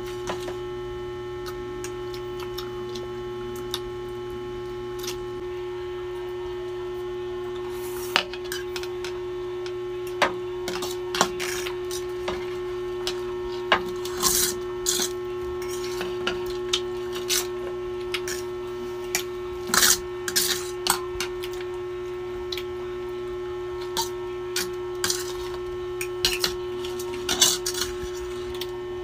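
Spoons and forks clinking and scraping on plates and a metal serving platter as noodles are served and eaten: irregular sharp clicks, more frequent after about eight seconds, over a steady electrical hum.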